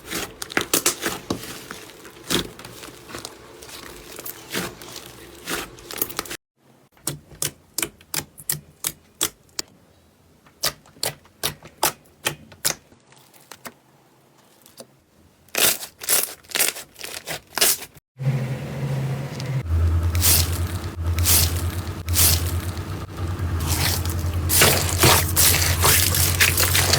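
Slime being squeezed and poked by hand, making a run of sharp crackles, clicks and pops over several cuts. In the last part a low steady hum runs under the crackling.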